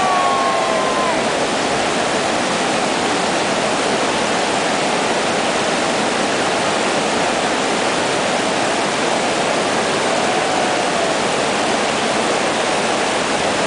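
Loud, steady rush of white-water river rapids, an even wash of churning water that does not change.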